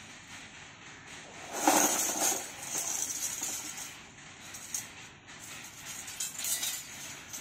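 Jingling and light clattering in several short bursts, the loudest about two seconds in: a baby's metal anklets and the loose pieces of a handmade toy truck knocking together as she moves.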